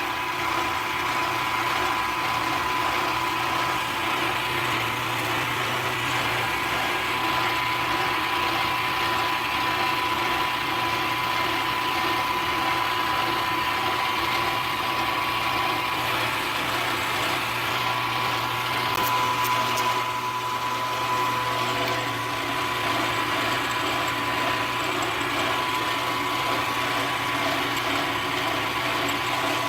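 Milling machine spindle running at about 1520 RPM with a solid carbide end mill cutting, a steady machine hum with a constant high whine.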